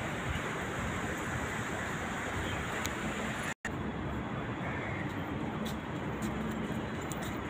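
Steady rumble of city traffic, which cuts out for a moment about three and a half seconds in.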